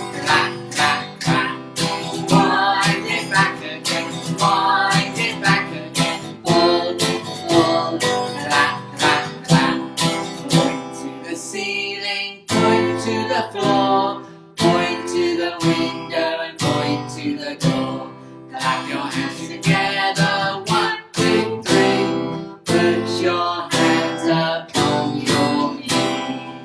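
Acoustic guitar strummed in a steady rhythm, playing a children's action-song tune.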